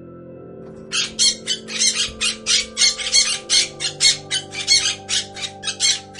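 Rapid harsh squawks from a bird, about four a second, starting about a second in and running on without a break.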